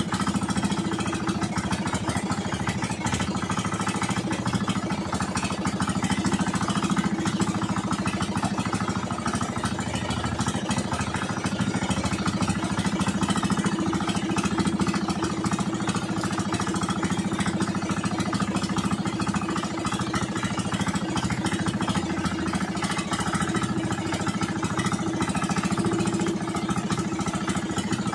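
Outrigger fishing boat's engine running steadily while the boat moves at sea, an even drone that does not change in speed.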